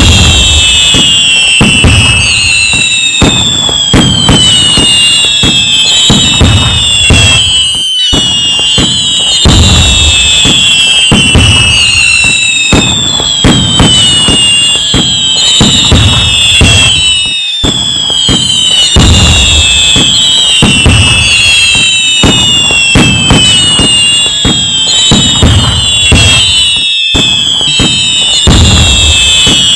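A continuous fireworks barrage: loud bangs and crackling with many whistles falling in pitch. The pattern breaks briefly and starts over about every nine and a half seconds, as a repeating loop.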